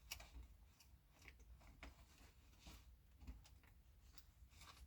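Near silence, with faint scattered ticks and sticky rustles from fingers working adhesive over mesh tape on a Lexan RC car body.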